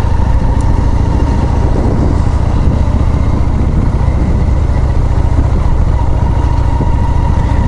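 Honda Shadow 400's V-twin engine running steadily with an even low rumble.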